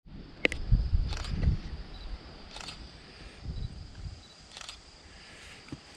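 DSLR camera shutter clicking four times at uneven intervals.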